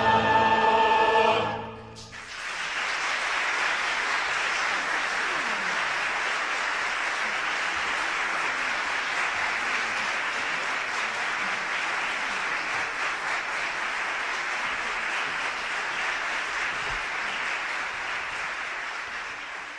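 Choir and orchestra hold the final chord of the piece, which cuts off about two seconds in. Then a concert hall audience applauds steadily, fading out near the end.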